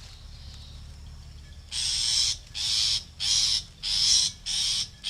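Long-tailed shrike (cendet) nestlings in the nest giving harsh, hissing rasps. The rasps start about two seconds in and repeat in half-second bursts, roughly one and a half a second, as the chicks beg.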